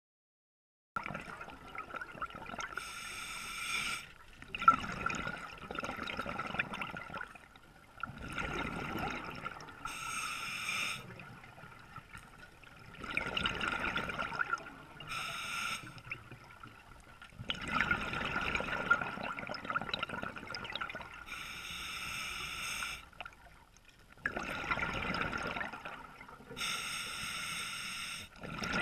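Scuba diver breathing through a regulator underwater. A short hissing inhale comes every five to seven seconds, followed by a longer spell of exhaled bubbles, over a steady high whine.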